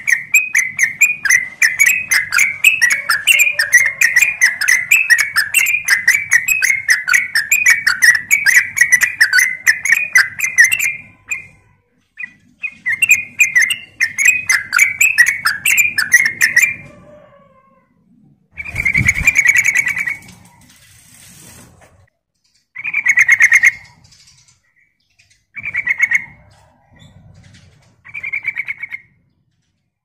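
Yellow-vented bulbul singing a long, rapid run of chattering, bubbly notes, then after a short break a second run. This gives way to a few shorter phrases, one of them with a dull thump near the middle.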